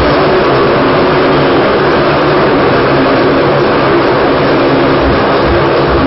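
Motocross bike engines running, loud and steady.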